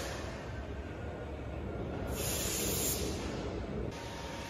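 Portable line boring machine running, its boring bar turning through the bores with a steady mechanical rumble, and a stretch of louder hiss about two seconds in that lasts nearly two seconds.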